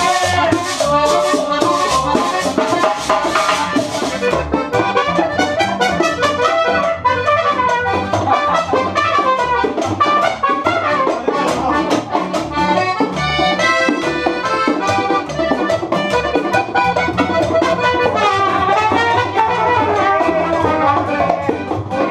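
Live acoustic regional Mexican music: an accordion melody over acoustic guitar strumming and a plucked upright bass (tololoche), with hand percussion. A high rattling percussion stops about four seconds in.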